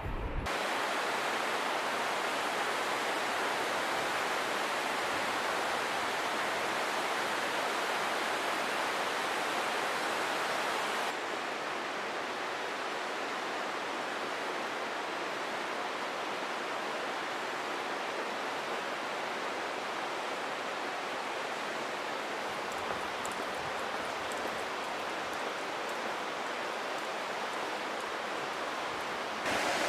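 Toyohira River rapids rushing steadily through a rocky gorge. The sound is a little quieter from about eleven seconds in.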